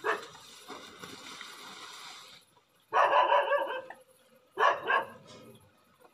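Dog barking: a rapid run of barks about three seconds in, lasting about a second, then a shorter bout about a second and a half later.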